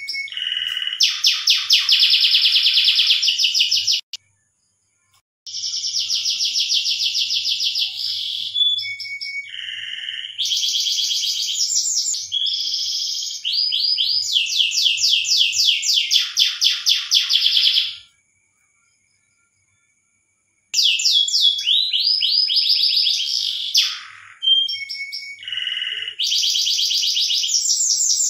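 Domestic canary singing its breeding (mating) song: long, rapid trills of repeated high notes that change from one roll to the next, broken by two brief gaps.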